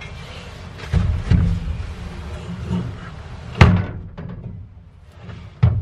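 Four dull thumps and knocks as a chrome air-ride air tank is moved about on a pickup's bed, the loudest about three and a half seconds in.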